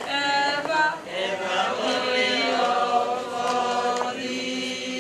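A choir singing a slow hymn, holding long notes.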